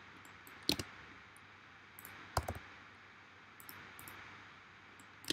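A handful of short, sharp clicks from working a computer's mouse and keys, the loudest about two and a half seconds in, over a faint steady hiss.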